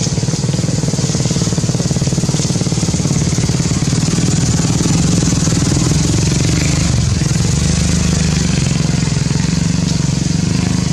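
A small engine running steadily with a fast, even pulse, without a break.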